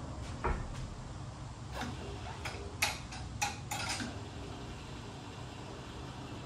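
MaxJax low-rise two-post car lift being let down: a steady low hum with a handful of sharp clicks, most of them in the first four seconds.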